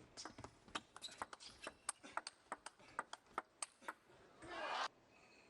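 Table tennis rally: a quick, irregular run of sharp clicks as the celluloid ball strikes the rackets and the table. Near the end there is a short swell of crowd cheering.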